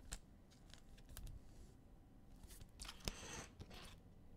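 Faint clicks and rustles of trading cards being flipped and slid through the hands, with a short rustle and a sharper click about three seconds in.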